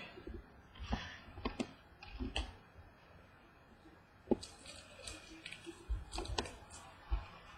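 Trading cards being handled: soft, scattered clicks and rustles as baseball cards are slid out of a pack and shuffled, the sharpest click about four seconds in.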